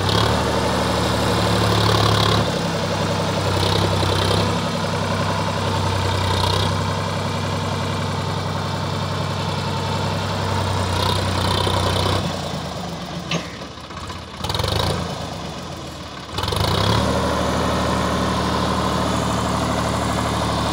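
Sonalika DI 740 III tractor's diesel engine running steadily while its hydraulics tip up a loaded trolley to dump mud. The engine sound drops away for a few seconds past the middle, then returns.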